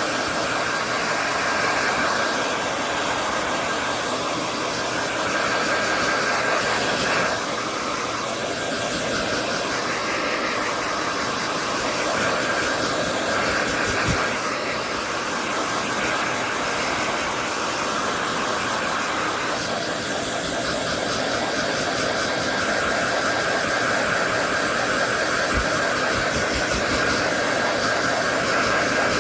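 Hand-held hair dryer blowing steadily on a dog's coat after a bath, its airflow and whine shifting in tone every few seconds. A few brief low bumps in the middle and near the end.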